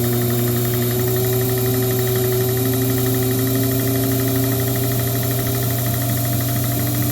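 Watchmaker's lathe running steadily under its electric motor and belt drive, with a constant hum and a fine, even rattle above it while a balance staff is being turned.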